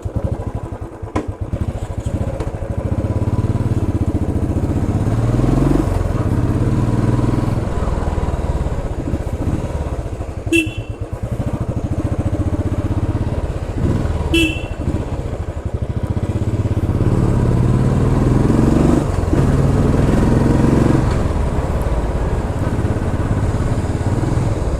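Royal Enfield Classic 350 Stealth Black's single-cylinder engine and exhaust while riding, the revs rising in sweeps and dropping back as it accelerates through the gears. Two short horn toots about four seconds apart near the middle.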